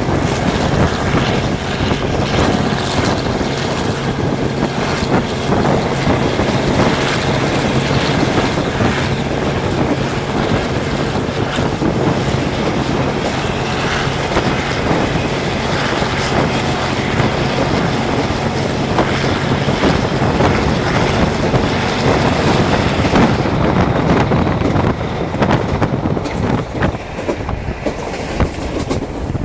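EMD 12-645E twelve-cylinder two-stroke diesel of a G22CU locomotive running under power, heard from aboard the train as a loud, steady drone with a low hum. The hum drops away about twenty seconds in, leaving the rumble and clatter of the wheels on the rails.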